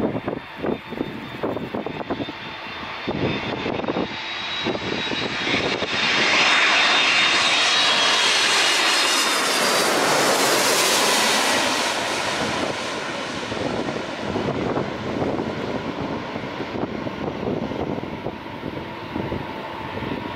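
Boeing 767-300 airliner's jet engines on landing approach, passing low overhead: the engine noise swells to its loudest, with a high whine, from about six to twelve seconds in, then eases off as the aircraft flies on toward the runway.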